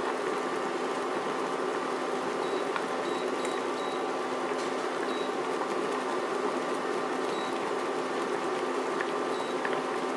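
Pork braising in a dark liquid in a wok, bubbling steadily with the heat turned down to a simmer to cook the meat tender, over a low steady hum.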